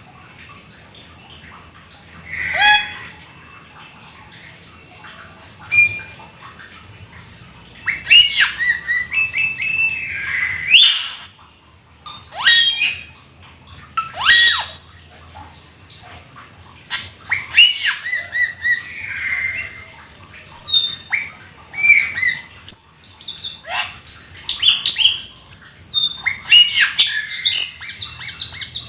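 Jalak keling, a starling, singing a varied song of whistles, chirps and harsh squawky notes: a few scattered calls at first, then a dense, busy run of notes from about eight seconds in.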